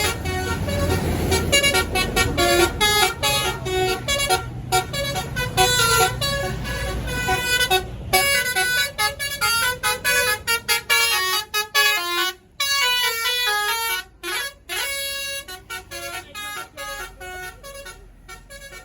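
A tour bus's Basuri telolet musical horn playing a fast tune of short stepped notes, growing fainter toward the end. A low rumble from the bus sits under it in the first half.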